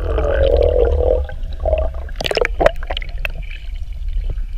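Water sound heard underwater through a GoPro camera's housing: a steady, muffled low rumble, with bubbling in about the first second and then scattered sharp clicks and knocks.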